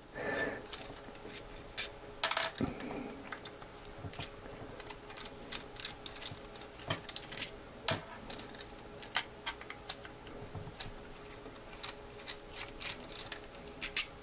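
Precision screwdriver clicking and ticking as it backs long screws out of a plastic gimbal arm, with small metal screws tapped down on a desk. The clicks are scattered and irregular, a few sharper than the rest.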